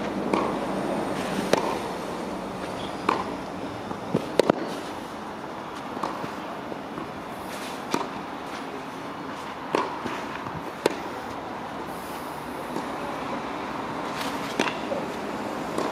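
Tennis rally on a clay court: sharp pops of racket strings striking the ball and the ball bouncing, coming irregularly every second or two, over a steady outdoor background hum.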